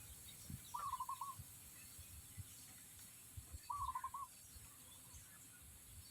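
Chickens calling: two short, wavering, trilled calls about three seconds apart, with faint low knocks and shuffling underneath.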